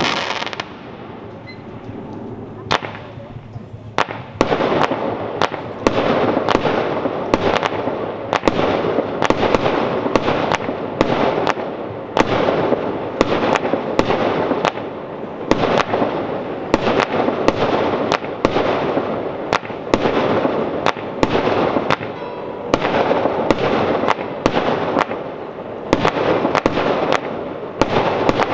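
Fireworks display: a rapid series of aerial shell bursts, a few scattered bangs at first, then about two sharp bangs a second from about four seconds in, with the noise of the bursts filling the gaps between them.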